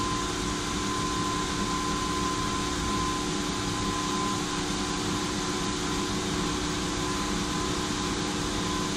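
Roller brake tester running under a motorhome's front wheels: a steady mechanical hum with a thin, constant whine and no change in pitch.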